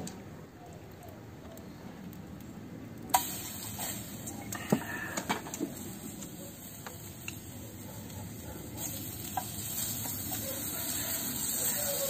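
Beef slices sizzling in hot oil in a frying pan, with scattered light clicks of chopsticks against the pan. The sizzling grows suddenly louder about three seconds in.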